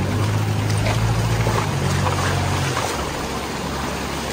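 A motor vehicle's engine running steadily at a low pitch, its note shifting slightly about three seconds in, over the steady rushing of a flooded stream.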